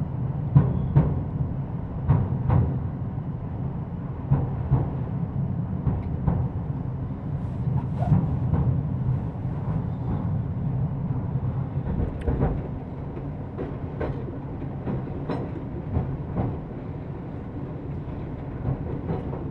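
Commuter train running, heard from inside its cab car: a steady low rumble with irregular clicks and knocks.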